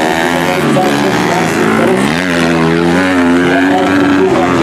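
155cc trail motorcycles racing on a dirt grasstrack, their engines revving, with the pitch rising and falling as riders work the throttle and overlapping engine notes from more than one bike.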